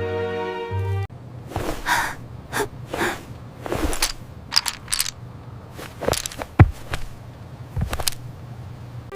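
Background music that stops abruptly about a second in, followed by scattered short clicks, knocks and rustling swishes at irregular intervals over a low steady hum; the sharpest knock comes about six and a half seconds in.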